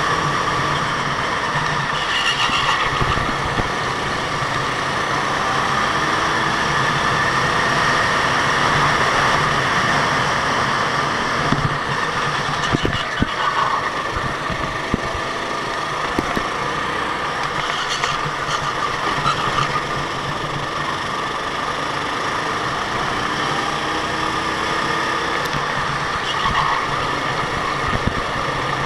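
Go-kart engines running steadily, their pitch rising and falling as they rev, with a few sharp clicks partway through.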